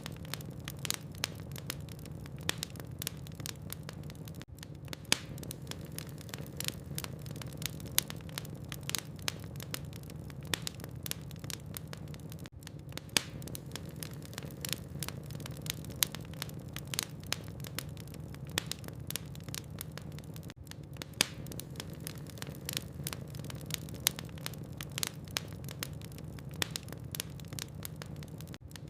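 Logs burning in a fireplace: many irregular sharp crackles and pops over a steady low rumble.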